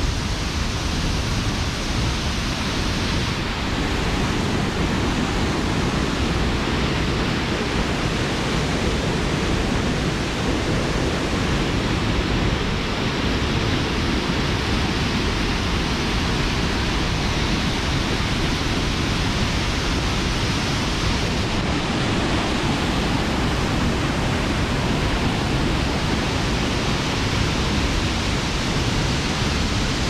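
Steinsdalsfossen waterfall pouring close by: a loud, steady rush of falling water with a deep rumble underneath.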